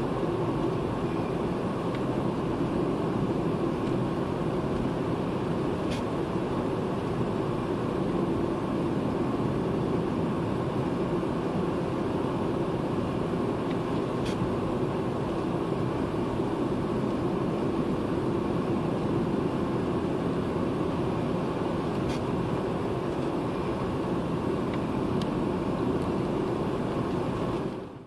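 BMW E36 328i's M52 straight-six cruising steadily at about 2,000 rpm in fifth gear, heard from inside the cabin as an even engine drone mixed with road noise. It cuts off abruptly near the end.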